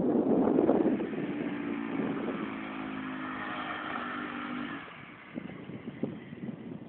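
Taotao 150cc ATV's single-cylinder four-stroke engine running as the quad is ridden past, loud as it goes by and fading in the last couple of seconds as it moves away.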